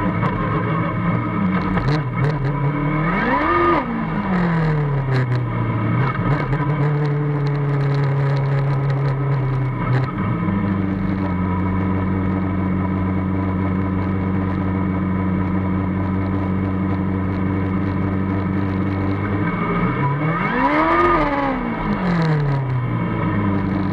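Formula Student race car's engine heard from the cockpit, running steadily at low revs as the car rolls slowly. It blips up and back down in pitch about three seconds in and again about twenty-one seconds in, and settles to a lower steady note about ten seconds in.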